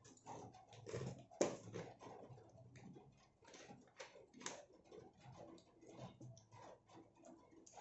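Faint clicks and taps of a plastic soda bottle being capped and set down on a table, with one sharp tap about a second and a half in.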